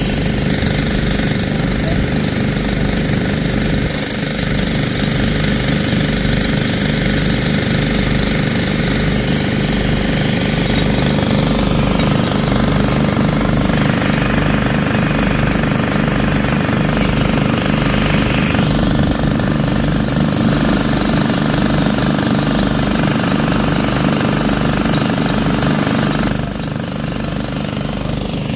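Small gasoline engine of a floating gold suction dredge running steadily, driving its water pump, with a rapid, even chugging; a little quieter near the end.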